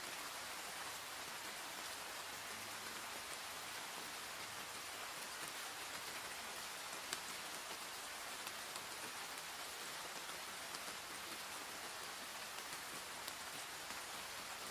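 Steady rain falling, an even hiss with occasional single drops ticking close by, one a little louder about halfway through.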